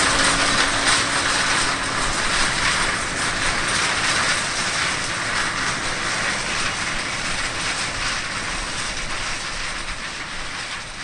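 John Deere 9610 Maximizer combine harvesting corn: its turbocharged 8.1-litre PowerTech diesel and threshing machinery make a steady, dense mechanical rushing noise. The noise slowly fades near the end.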